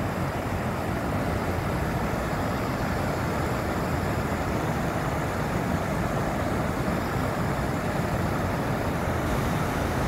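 Stream water pouring over a low weir and churning into white water below: a steady rushing noise.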